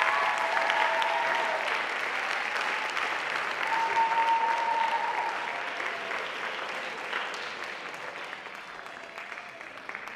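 Audience applause, dense clapping that slowly dies down.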